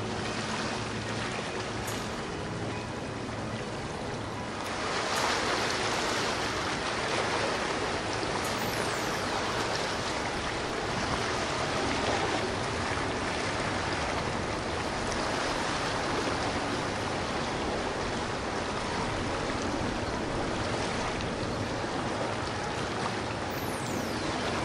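Passing boats' wake water rushing and splashing along the hulls, with boat engines running underneath; the rush grows louder about five seconds in.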